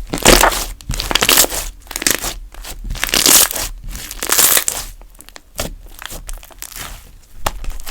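Hands squishing and stretching galaxy slime, with crackling, popping clicks from trapped air. Three longer crackly squishes come about a second apart in the first half, with scattered sharp pops between them.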